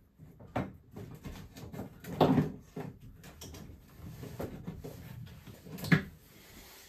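Knocks, bumps and rubbing from hands working inside a kitchen cupboard, feeding dishwasher hoses through the hole in the cupboard side, with two louder thumps, about two seconds in and near the end.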